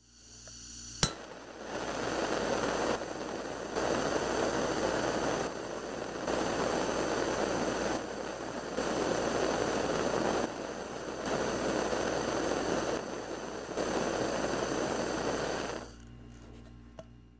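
Crackling, hissing electric-spark sound effect for an animated logo, with a sharp snap about a second in. The crackle swells and eases in steps every second or two and drops away near the end.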